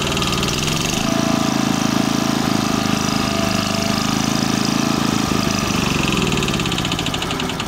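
Small air-cooled OHV engine of an Atex Carrier SL465 crawler carrier running steadily, its speed dropping near the end.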